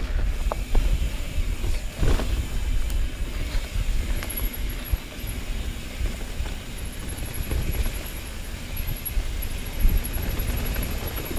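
Mountain bike rolling down a dirt singletrack: tyre and frame rattle over a steady low wind rumble on the camera mic, with occasional knocks from bumps. A faint, fast high ticking runs through the second half.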